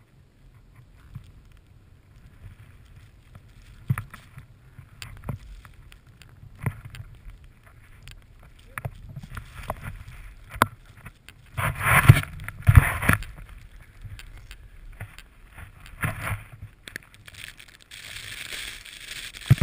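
A snowboard riding through deep powder: a low rush of board and snow, with scattered knocks and a hissing spray of snow. It is loudest in a burst of spray about twelve seconds in, and there is a higher hiss near the end.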